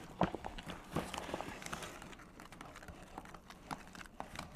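Paper flour bag rustling with light knocks and scrapes of a measuring cup as flour is scooped into a plastic tub. The sounds are busiest in the first couple of seconds and grow sparse after.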